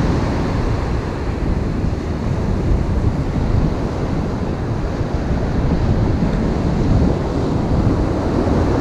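Ocean surf breaking and washing up the beach, a steady rushing, with wind buffeting the microphone.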